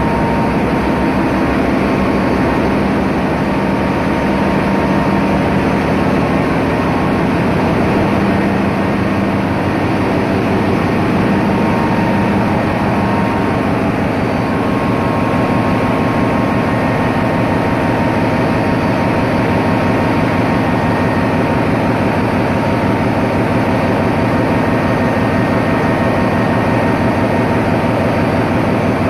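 Loud, steady din of a large container ship's engine room, with the diesel generator sets running close by.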